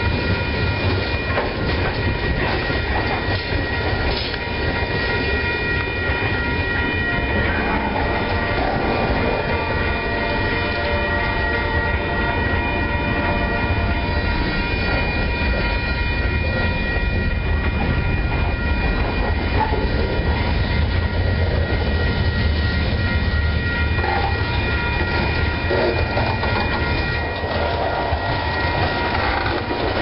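Freight cars of a long train rolling past at a grade crossing: a steady low rumble with wheels clacking over the rail joints, and several steady high ringing tones over it through most of the passage.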